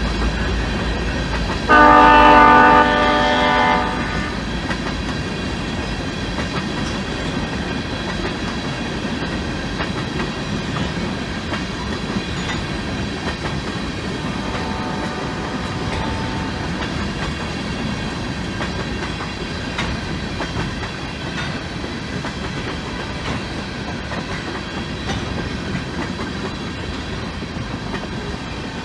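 Loaded and empty tank cars of a freight train rolling past at a crossing, a steady rumble with wheel clatter. Near the start the train's single GP49 locomotive sounds its horn, a chord held about two seconds, the loudest sound here. A fainter horn blast follows around the middle.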